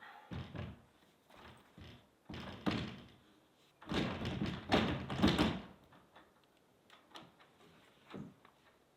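Knocks, thuds and scraping of wooden parts being handled and fitted on a log cabin, a few separate knocks first and a louder rough cluster about four to five and a half seconds in.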